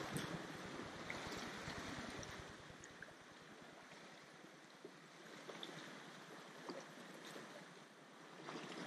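Small sea waves washing against shore rocks: a faint, steady wash with light splashes here and there.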